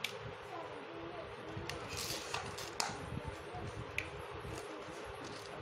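A few light clicks and a brief scrape from handling a tin can and small stone chips, over a steady background hum.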